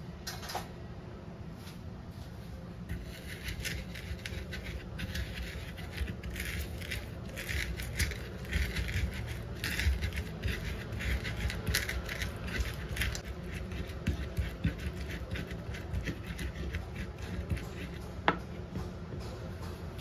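Wooden pestle crushing and grinding red bird's eye chilies, garlic and salt in a wooden cobek mortar: dense, irregular scraping and crushing strokes that start about three seconds in, followed by a single sharp knock near the end.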